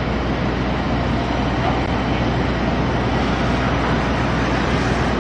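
Komatsu P&H L-2350 wheel loader's large diesel engine running steadily at idle: a constant low rumble under an even wash of noise.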